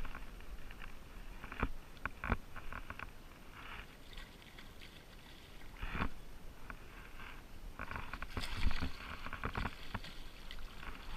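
Water sloshing and splashing, with sharp knocks here and there, as a hooked Lahontan cutthroat trout is played close in the shallows; the fish thrashes at the surface near the end, with the loudest splash about eight and a half seconds in.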